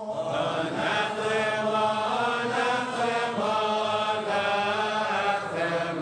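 Liturgical chant: voices singing long held notes that step slowly from one pitch to the next.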